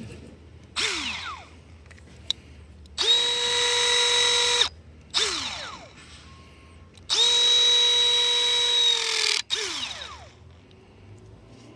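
Milwaukee M18 ForceLogic 2978-22K linear crimper cycling twice. Each time its electric motor whines at a steady pitch for about two seconds as the jaw drives closed, then gives a short whir that falls in pitch as the jaw releases and opens back up. A similar falling whir comes about a second in, and there is a single click between the cycles.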